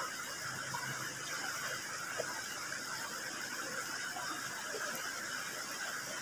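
Steady rush of a shallow, rocky river, with faint chewing and mouth noises from someone eating.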